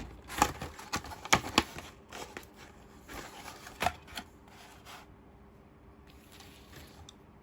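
Unboxing handling sounds: sharp clicks and taps of small toy pieces and packaging being handled, a dense run in the first four seconds, then fainter, sparser rustling.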